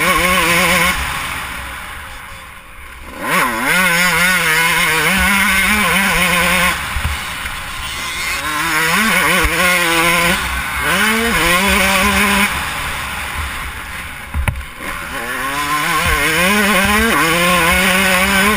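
Motocross dirt bike engine revving hard, its pitch climbing and dropping again and again as the throttle is worked and gears change, with a steady rush of wind on the microphone. The engine briefly goes quiet about two to three seconds in, then revs back up, and there is another short drop near the end.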